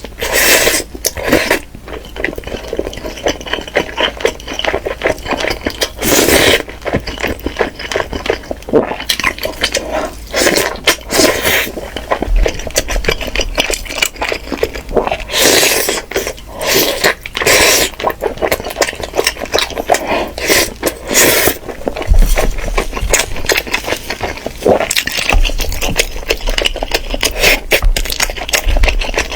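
Kitchen work: dishes and utensils clinking and scraping, with irregular knocks and a few louder strokes spread through.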